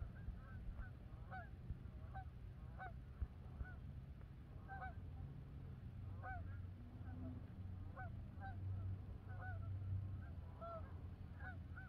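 A flock of Canada geese honking faintly in flight, with short honks repeating every half second to a second, over a low steady rumble.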